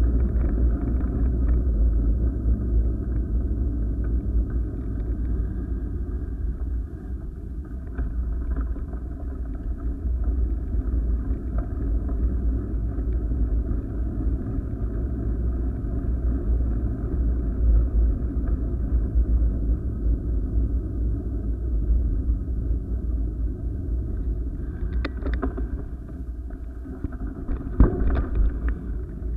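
Steady, muffled low rumble of wind and movement on a moving body-worn camera, with a few sharp knocks near the end.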